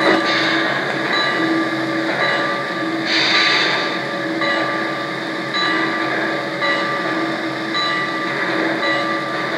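Sound effects of an O-gauge Pennsylvania Railroad steam locomotive model standing at rest: a steady mechanical hum with a pulse repeating about once a second, and a burst of steam hiss about three seconds in.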